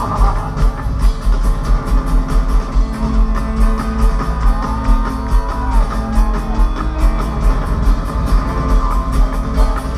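Live band music with a fast, steady beat.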